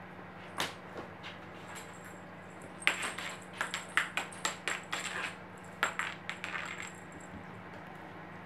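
A cream-point cat playing with a feather wand toy on a hard floor: light taps and scuffs of its paws and the toy. A few single taps come at first, then a quick flurry from about three to seven seconds in.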